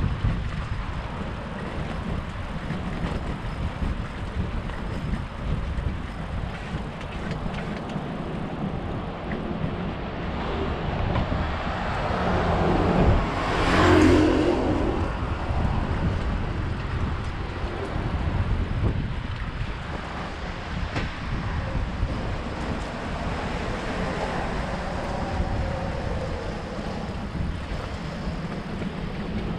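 Wind buffeting the microphone of a moving bicycle, with a motor vehicle passing close by about halfway through: its noise swells over a few seconds to a loud peak and fades away.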